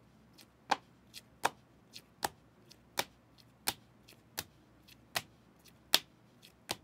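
Trading cards in rigid plastic top loaders clicking against each other as they are flipped one by one through a stack: a sharp click about every three-quarters of a second, with a few fainter clicks between.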